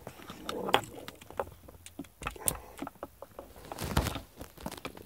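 Handling noise of cables and plastic connectors being plugged in and pushed into a car's centre console: scattered sharp clicks and knocks with rustling between, the loudest about a second in and again near four seconds.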